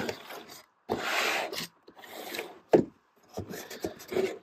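A cardboard box set being slid out of a corrugated cardboard shipping case: a scraping rub of cardboard on cardboard about a second in, a sharp knock a little past the middle, then softer rustles and bumps.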